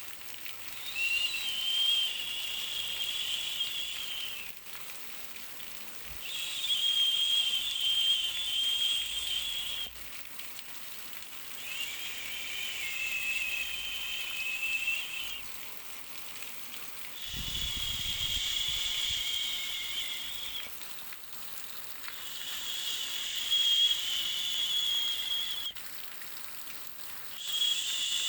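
Insects calling in repeated high-pitched buzzing bouts, each about three to four seconds long with short pauses between, six in all, over a faint steady hiss.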